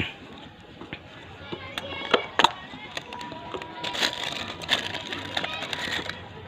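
Scattered clicks and taps of a cardboard carton and plastic hair-wax tubs being handled just after the box has been cut open with a knife.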